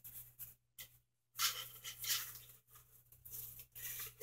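Cardboard pieces being handled, rustling and scraping in several short bursts, with a longer stretch of rustling about a second and a half in.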